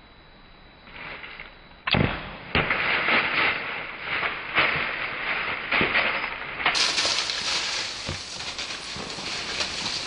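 A bow shot at a whitetail buck: a sharp crack about two seconds in and a second knock just after, then the buck crashing away through dry fallen leaves with quick, uneven footfalls.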